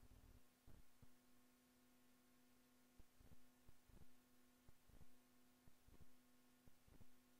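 Near silence: a faint steady electrical hum, with a few soft low knocks scattered irregularly through it.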